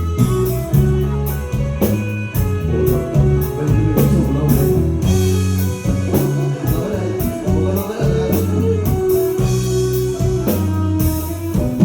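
Live band playing an instrumental passage of a Thai pop song: guitar over bass and a drum kit keeping a steady beat.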